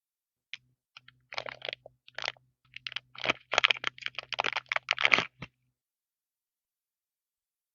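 Hands handling small craft items for a resin keycap: irregular clicks and scratchy rustling that stop about five and a half seconds in.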